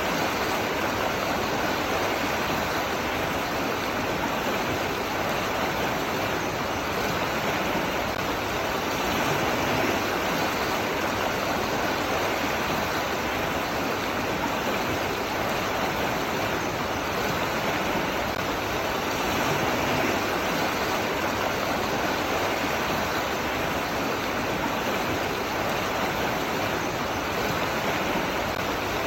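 Running water rushing steadily, an even hiss with no breaks or distinct splashes.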